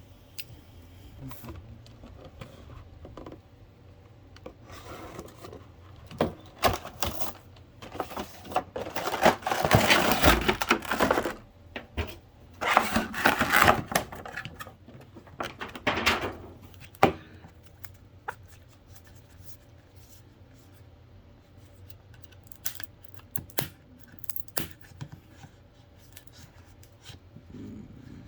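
Packaging handled and opened by hand: scattered taps and clicks, with two louder stretches of rustling about ten and thirteen seconds in and a sharp click at about seventeen seconds.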